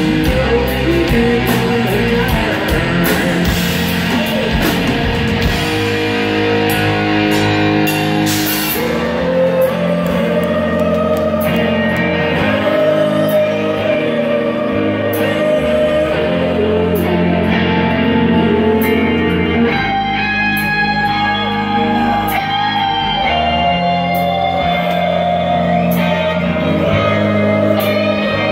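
Live hard-rock band playing: electric guitars, bass and drums under a sung vocal that holds long notes. Cymbals crash thickly through the first several seconds, then thin out.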